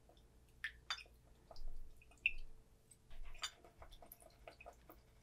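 Faint pouring of rice vinegar from a glass bottle into a metal measuring spoon, in a few short trickles, with scattered light clicks of the spoon against a ceramic ramekin.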